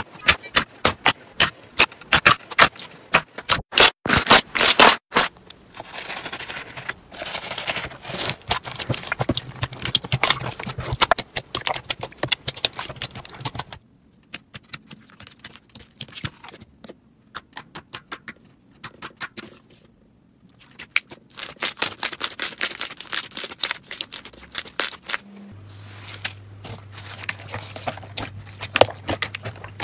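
Hands squishing, poking and squeezing slime, giving dense wet clicks and pops that come and go from clip to clip, with a quieter stretch about halfway through. A faint low hum sits under the last few seconds.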